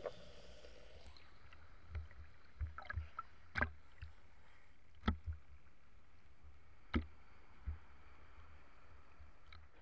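Small sea waves lapping against a camera bobbing at the water surface. The sound is a low, muffled steady rumble with irregular sharp knocks as the water slaps against it.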